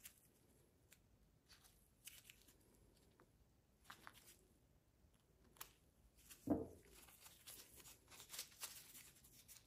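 Faint clicks and scrapes of a small screwdriver and metal carburetor parts being handled, as the cover screws are backed out of a chainsaw's diaphragm carburetor. A soft knock about six and a half seconds in, then faint scratchy handling noises.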